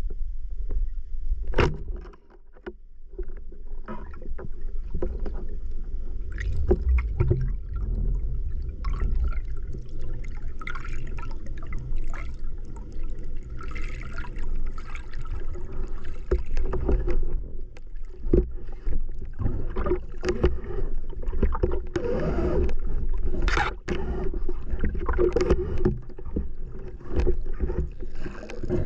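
Underwater sound picked up by a spearfisher's camera: a steady deep rumble of water moving against the housing, with bubbling and many scattered clicks and knocks from the diver's gear.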